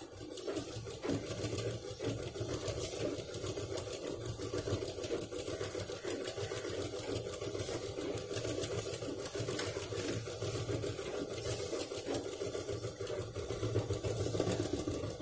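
Sewing machine running steadily, stitching a seam through layered fabric, foam sponge and lining, its needle strokes fast and even.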